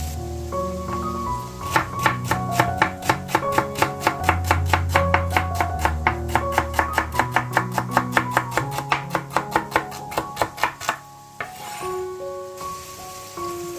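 Kitchen knife chopping celery on a wooden cutting board: a fast, even run of chops, about four or five a second, starting a couple of seconds in and stopping a few seconds before the end, over background music.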